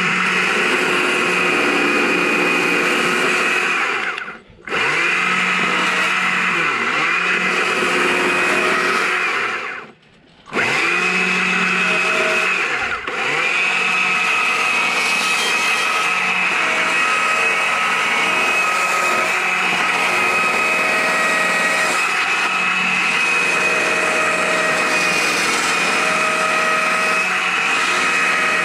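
Chainsaw running at high revs, cutting into a maple log during carving, its pitch dipping briefly as the chain bites. The sound breaks off twice for a moment, about four seconds and ten seconds in.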